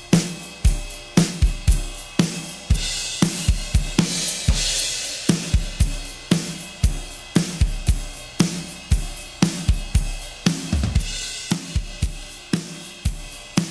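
A recorded drum kit playing a steady beat of kick, snare and hi-hat, with cymbal crashes about three seconds in and again near eleven seconds. It is played back through an Audio-Scape 260VU stereo compressor, a replica of the dbx 160, to hear its compression on the drums.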